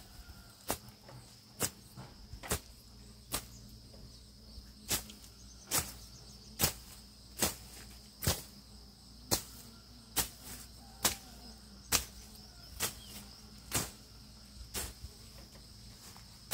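Sharp, evenly spaced knocks, about one a second, over a steady high insect trill.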